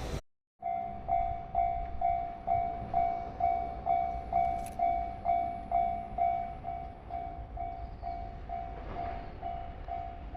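Japanese railway level-crossing warning bell ringing in an even, pulsed rhythm of about two strikes a second, signalling that a train is approaching. It starts just after a brief gap near the start.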